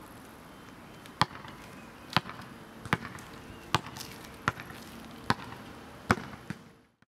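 Basketball bouncing on an asphalt court, dribbled seven times at an even pace of about one bounce every 0.8 seconds. The sound fades out just before the end.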